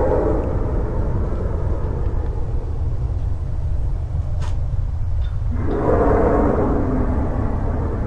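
Steady low rumble, with a swell of louder rushing noise that fades out in the first two seconds and another that rises about six seconds in.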